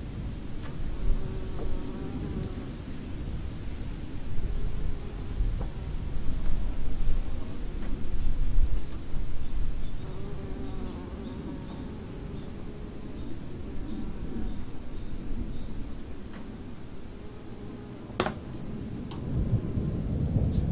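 Steady, high-pitched pulsing insect chirring throughout, over low rumbling noise, with one sharp click near the end.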